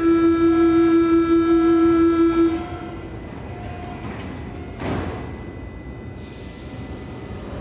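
Berlin U-Bahn train's horn sounding once, a single steady tone held for about two and a half seconds. A short burst of noise follows about five seconds in.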